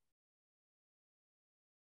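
Silence: the recording is digitally muted, with no sound at all.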